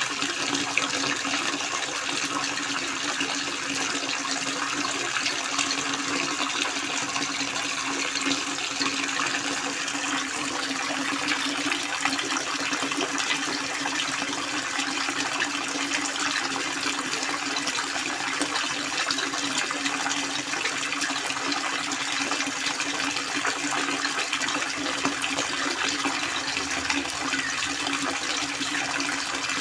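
Water falling steadily from a spout and splashing, an unbroken rushing sound.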